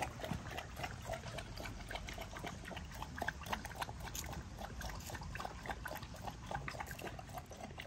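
Two dogs lapping water from steel bowls: quick, irregular wet laps, several a second.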